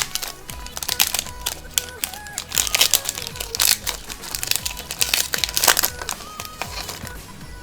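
Crinkling and rustling of a foil Pokémon TCG booster pack wrapper as it is handled and opened, in many quick irregular crackles, over background music.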